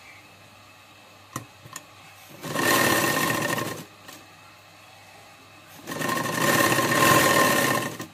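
Sewing machine stitching a folded neck band on burqa cloth in two runs: a short run of about a second and a half, then a longer one of about two seconds, each starting and stopping sharply. Two light clicks come before the first run.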